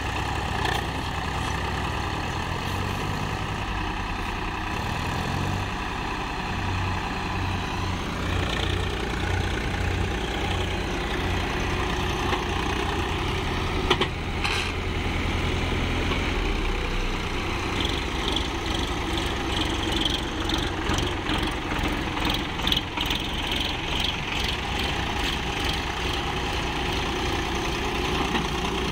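Swaraj XT tractor's diesel engine running under load, pulling a loaded trailer with its rear wheels digging into sand. A single sharp knock about halfway through, and the engine note turns more pulsing over the last third.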